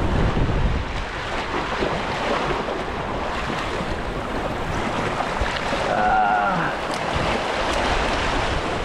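Surf washing and splashing over the granite jetty rocks, with wind noise on the microphone.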